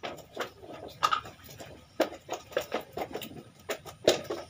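A knife scaling and scraping a papuyu (climbing perch) held in the hand: about a dozen irregular sharp clicks and scrapes. The loudest come about a second in and near the end.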